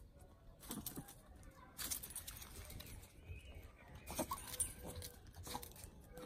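Two small Pomeranian dogs scuffling on a tiled floor: scattered light clicks and skitters of claws on tile, with a few louder knocks a little past the middle.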